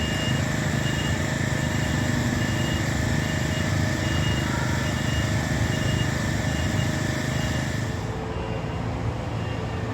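A vehicle engine running with a reversing alarm beeping evenly, about one and a half beeps a second. About eight seconds in the hiss drops away and the beeping becomes fainter.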